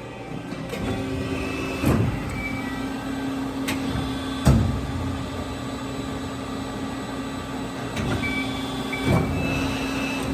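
Amada FBD-8020 CNC press brake running through a bend cycle: a steady machine hum with three sharp clunks, the loudest about four and a half seconds in, a few lighter clicks, and short high whines around the clunks.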